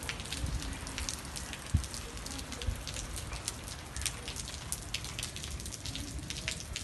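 Steady rain, with many separate drops ticking irregularly on a hard surface, and a low thump a little under two seconds in.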